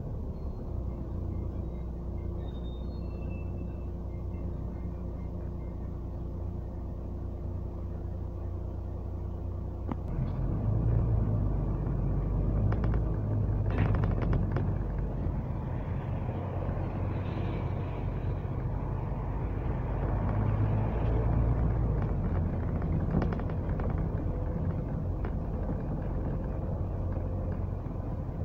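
A double-decker bus's engine and road rumble, heard from inside on the upper deck while it drives. About ten seconds in the rumble grows louder and fuller as the bus picks up speed, with a few sharp knocks or rattles from the body.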